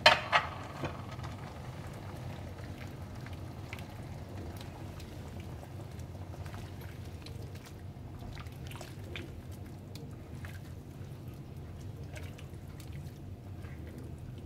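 Stock in a pan of paella coming back toward the boil, with scattered small bubbling pops and ticks over a low steady hum. A single sharp knock comes right at the start.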